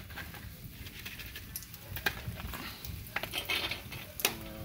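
Burning sparklers crackling: scattered sharp clicks and small pops, the loudest about two seconds in and again near the end.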